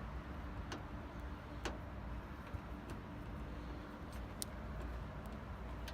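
A few light, sharp clicks of small metal bonnet-protector clips and self-tapping screws being handled and fitted, over a steady low hum of background noise.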